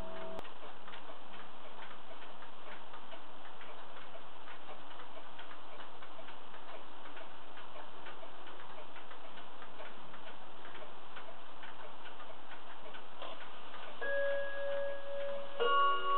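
Pendulum wall clock ticking steadily. Near the end it begins its bim-bam strike: one ringing chime note, then about a second and a half later a second, fuller two-tone strike.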